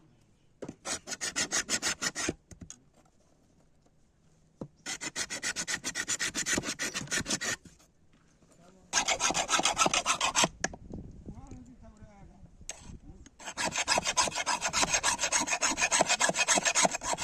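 Rapid hand scraping or rasping strokes, many a second, in four bursts of one to four seconds with short pauses between, the last and longest running on at the end.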